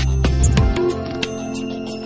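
Instrumental background music with sustained notes; its heavy bass drops out under a second in.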